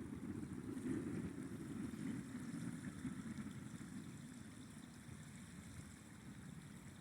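River water flowing, a low, even rush that swells about a second in and eases off toward the end.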